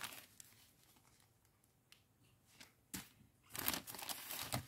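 Small plastic zip-lock bag of round diamond-painting drills handled: a click about three seconds in, then a short burst of crinkling plastic near the end.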